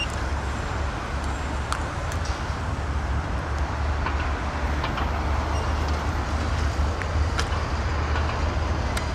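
Steady low rumble of a vehicle, with a few faint clicks.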